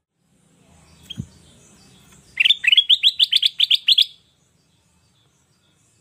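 Caged kutilang emas, a yellow bulbul, singing a rapid run of about a dozen quick rising chirps lasting nearly two seconds. About a second earlier come a single short chirp and a soft thump.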